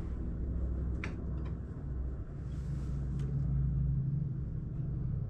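Steady low rumbling hum in a workshop, with a few faint light clicks of a small steel square being set against the grinder's steel platen.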